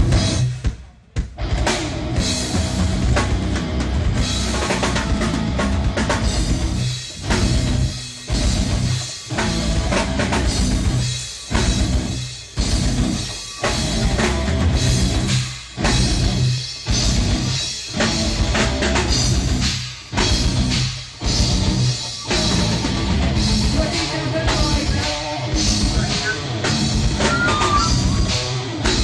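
Rock band playing with the drum kit and bass drum prominent. Through the middle the band cuts off and comes back in again and again, in short stop-start breaks.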